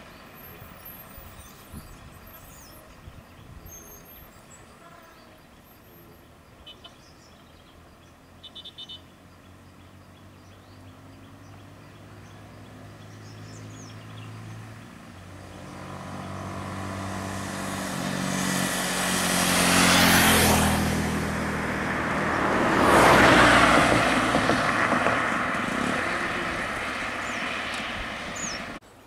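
Road vehicles passing close by, a bus and a van among them. Engine hum and tyre noise swell in the second half and peak twice, a few seconds apart, then cut off suddenly near the end. Before that there is only a low engine hum with a few faint clicks.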